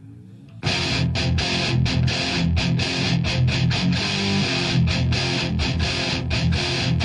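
Heavy metal song: after a quiet intro, the band comes in loud about half a second in, with a chugging distorted electric guitar riff and steady hard-hitting rhythm.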